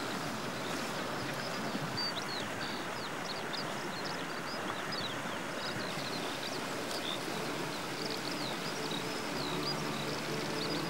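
Outdoor ambience: a steady rushing background noise with many birds chirping in short high calls throughout. Music comes in near the end.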